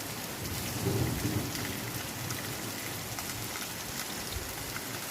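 Heavy rain falling steadily, hard enough to set a pond's surface bubbling, with a brief low rumble about a second in.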